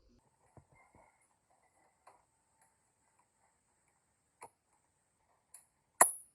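Scattered light clicks and taps of tools and small parts being handled on a workbench, with one sharp, louder click about six seconds in.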